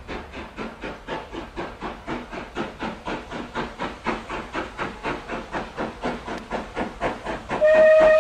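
Steam locomotive approaching, its exhaust chuffing in an even beat of about four to five a second that slowly grows louder. Near the end its whistle sounds, one steady loud tone.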